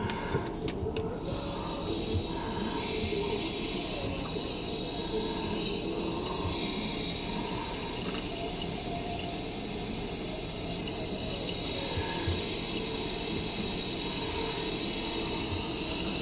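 Steady rush of running water, as from a sink tap, building up about two seconds in and holding on; a few clicks sound in the first second.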